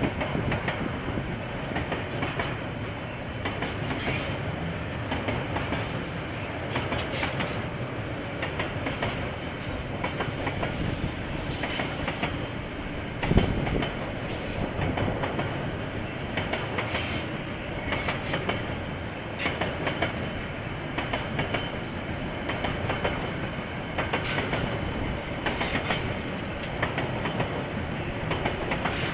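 Container freight train's wagons rolling past, picked up by a security camera's microphone, with the wheels clattering over the rail joints in a repeated clickety-clack. There is one louder clank near the middle.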